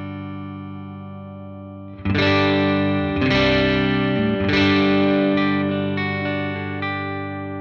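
Electric guitar, a Fender Stratocaster, played through a Dr. Z Maz 38 Senior Reverb 2x12 combo amp. A chord rings out and fades. About two seconds in, fresh chords are strummed, and a few lighter notes follow before it all rings out.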